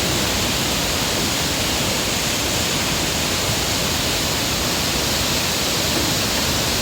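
Kegon Falls' plunging water rushing in a steady, unbroken roar of noise.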